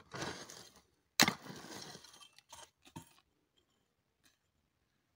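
A short-handled hoe digging into dry, crumbly earth: a scrape, then one sharp strike about a second in followed by loose soil scraping and sliding, and a couple of lighter knocks.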